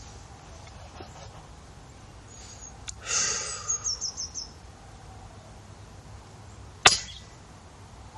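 A single sharp shot from a PCP air rifle (FX Impact) about seven seconds in, the loudest sound, with a short decaying tail. Around three seconds in there is a brief click, then a second or so of clattering and rustling.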